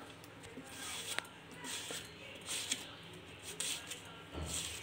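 Peeled raw green banana being sliced on a steel grater's chip-cutter blade: a short rasping scrape with each stroke, about once a second, with a sharp click a little over a second in.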